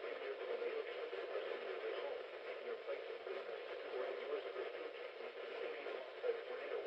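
Steady hiss of radio static from a receiver, with no alert tones.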